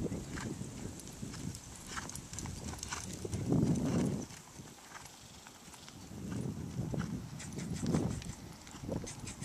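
Hoofbeats of a Holsteiner gelding cantering on a lunge line over dry, dusty turf: dull thuds of the hooves striking the ground, with light clicks and scuffs.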